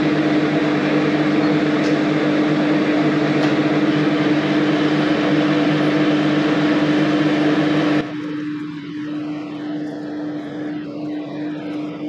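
Metal lathe running with its four-jaw chuck spinning: a steady machine hum with a strong single tone over a noisy whir. About eight seconds in the sound drops suddenly to a quieter, steadier run with the same hum.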